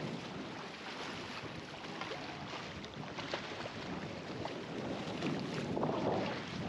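Wind buffeting the microphone over choppy sea water, with small splashes from a hooked jack crevalle thrashing at the surface. The sound swells louder about six seconds in.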